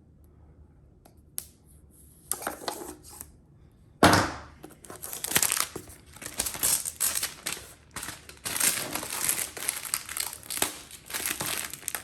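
Packaging being handled, torn and crinkled: a few faint rustles, then a sudden loud tear about four seconds in and steady crinkling and crackling of wrapping for the rest.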